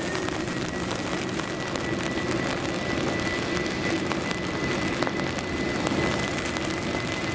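Boeing 747 jet engines running at takeoff power as the four-engine airliner rolls down a rain-soaked runway: a steady jet rumble with a thin high whine held steady, over the hiss of heavy rain.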